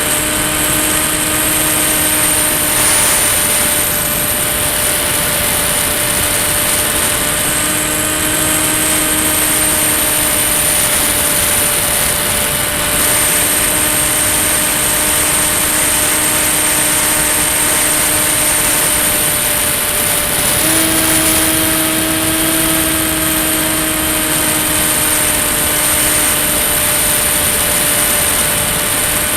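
Ranger EX model plane's electric motor and propeller running steadily in flight with a high whine and a rush of air. The pitch wavers slightly with throttle and steps up a little about two-thirds of the way through.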